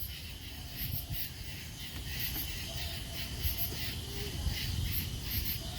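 Crickets chirping in short pulses that repeat several times a second, over a low rumble.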